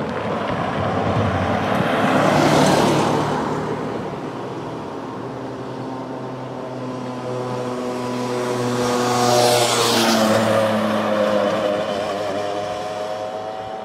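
Traffic and a train passing at a level crossing with the barriers down. A vehicle passes close by about two to three seconds in. About ten seconds in a train runs over the crossing: its steady whine drops in pitch as it goes by, along with a rush of wheel noise.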